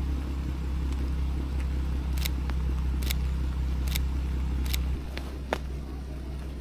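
Ford Mustang GT's V8 engine running at idle, a steady low drone that comes in abruptly and drops slightly in level about five seconds in. A camera shutter clicks four times over it.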